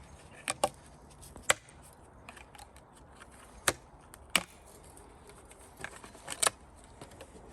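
A ratchet pruner and its packaging handled during unboxing: a handful of sharp, irregular clicks and snaps, the loudest about one and a half, three and a half and four and a half seconds in.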